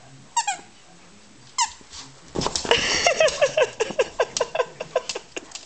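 Two single high squeaks, each falling in pitch, then from a little past two seconds in a rapid run of them, about five a second, for some three seconds.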